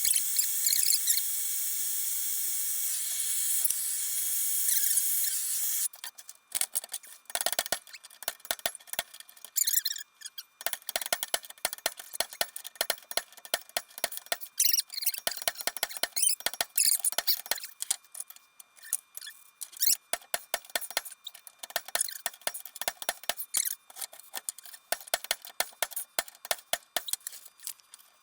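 A gas torch flame hissing steadily, cut off about six seconds in, then a long run of quick clicks, squeaks and metal-on-metal scrapes as a heated, rust-seized fastener on an old reel mower is worked with a wrench.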